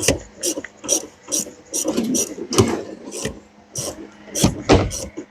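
Hand ratchet wrench worked in short back-and-forth strokes, a clicking stroke about twice a second, with a couple of heavier knocks near the end.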